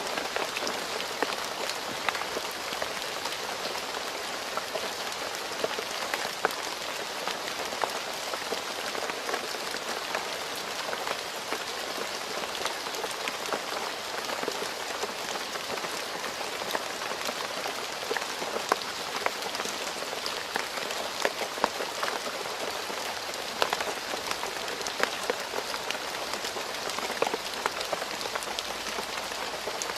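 Steady rain falling on a road surface, an even hiss of rainfall with many close individual drop splats scattered through it.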